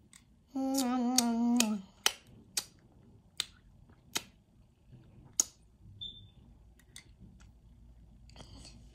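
A child's voice humming a wavering 'mmm' for about a second, then a string of sharp, irregular clicks, one every half second to second.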